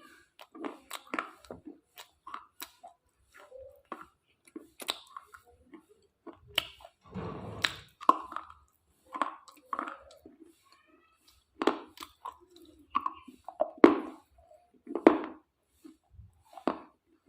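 Close-up crunching and chewing of brittle slate pieces: irregular sharp cracks as pieces snap, with a longer grinding crunch about halfway through.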